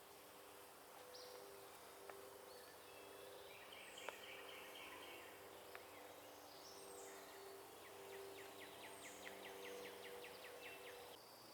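Faint woodland birdsong: scattered short high chirps, and a fast rattling trill of evenly spaced notes near the end. A few soft clicks and a faint steady low hum lie underneath.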